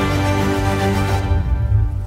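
Background music with sustained notes over a heavy bass; its higher parts drop away a little over a second in.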